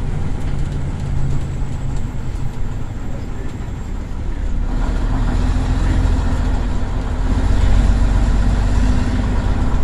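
Leyland Titan PD3 double-decker bus's diesel engine, heard from inside the lower saloon. It runs easily at first, then pulls harder from about halfway through with a deeper, louder note as the bus accelerates.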